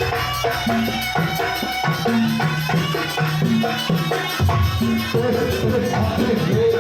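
Jaranan gamelan music: drums and tuned percussion playing a continuous rhythmic pattern of struck, ringing notes.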